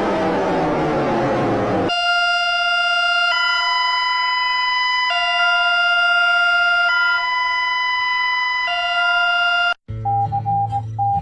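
A noisy sound sliding down in pitch dies away over the first two seconds. Then a two-tone hi-lo siren switches between a low and a high note about every two seconds for some eight seconds. After a brief cut, on-off Morse code beeps at a single pitch start near the end over a low hum.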